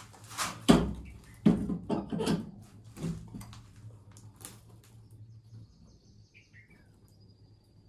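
Knocks and clicks of fuses being handled and fitted at an electric motor starter panel: a handful of sharp knocks in the first three seconds or so, then fainter ticks. A low steady hum runs until past the middle, and a bird chirps briefly later on.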